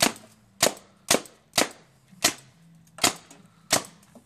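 Tippmann Alpha Black paintball marker firing seven sharp shots in a quick, slightly uneven series, about two a second.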